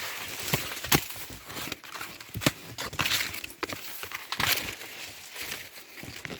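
Rustling of dry cornstalks and leaves with irregular sharp snaps and knocks, as someone moves and handles things among the corn plants.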